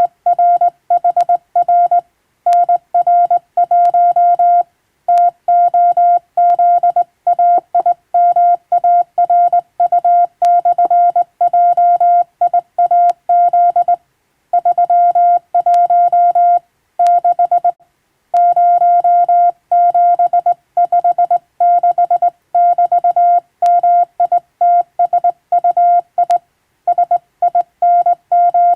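Morse code sent by hand on a straight telegraph key: a steady single-pitched tone switched on and off in dots and dashes. Short gaps fall between characters, with a few longer pauses between words.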